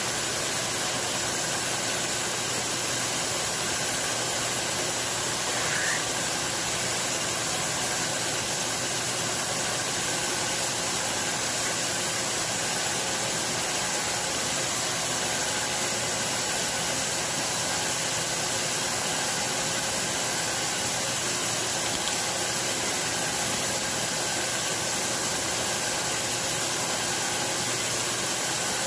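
Steady hiss of a compressed-air mist coolant nozzle spraying onto a drill in a CNC mill, with the mill's spindle running underneath at an even level.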